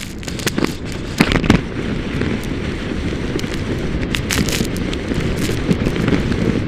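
Skier being towed at speed behind a snowmachine: a steady rush of wind on the camera microphone, with many crackling knocks as the skis run over the snow, thickest about a second in.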